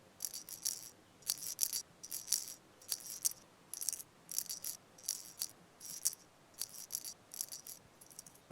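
A musical shaker rattled in a steady rhythm: short shakes, often in pairs, about every three-quarters of a second.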